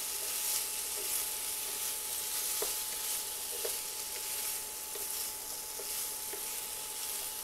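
Diced potatoes sizzling as they fry in oil in a nonstick frying pan, with a wooden spoon stirring them and knocking lightly against the pan now and then.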